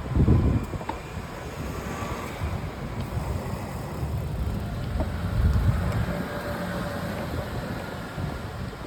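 Wind buffeting the microphone, with a few faint clicks from a Giant Contend SL road bike: the abnormal noise being recorded.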